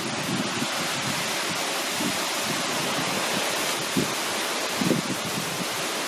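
Steady rushing roar of a tall waterfall plunging into its plunge pool. A few brief low gusts of wind on the microphone come through near the end.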